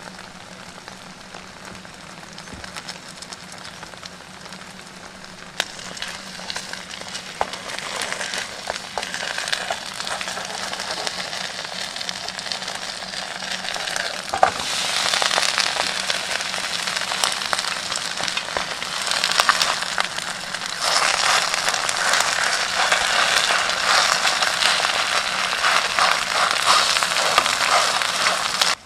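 A pot of broth boiling hard on a camp stove, with dense crackling and sizzling bubbles. It steps up louder about halfway through and again about two-thirds of the way in, over a faint steady low hum.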